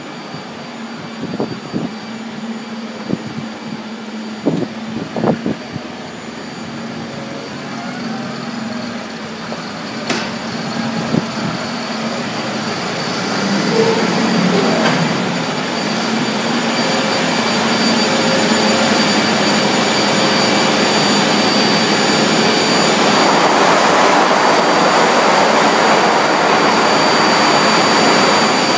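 Machinery running with a steady noise and a faint high whine. It builds gradually and is loudest in the last part, with a few short knocks in the first few seconds.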